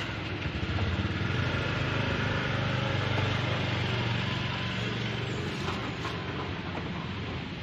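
A small engine running steadily. It grows louder about a second in, holds through the middle and eases off over the last few seconds.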